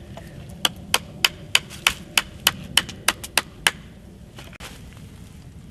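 Small hatchet chopping at a wooden branch on a stump, eleven quick, even strokes about three a second, stopping a little after halfway.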